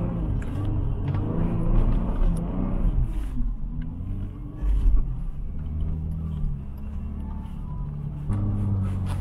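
Off-road vehicle engine revving up and down over a steady low rumble during dune driving, with a heavy low thump about five seconds in.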